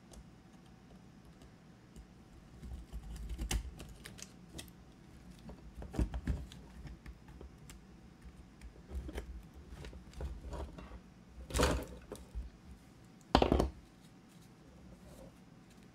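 Small clicks, taps and scrapes of plastic and metal as the old battery pack is worked out of an opened cordless electric screwdriver's plastic housing. Two louder short scrapes come about three quarters of the way through.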